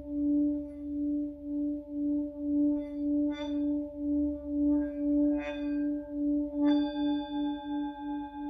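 Tibetan singing bowl sounding a sustained low hum that pulses evenly about twice a second. A brief click about seven seconds in sets higher overtones ringing above it.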